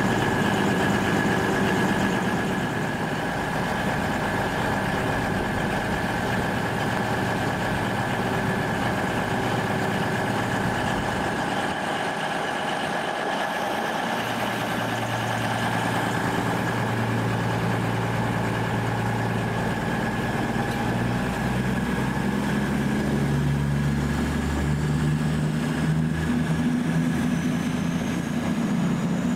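A train standing at the platform with its engine or traction equipment running steadily, with several held tones. Near the end the low tones step up and a faint whine rises in pitch.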